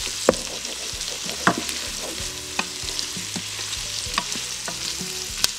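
Diced onion, carrot and garlic sizzling as they sauté in an Instant Pot's inner pot, stirred with a wooden spoon that knocks sharply against the pot about five times.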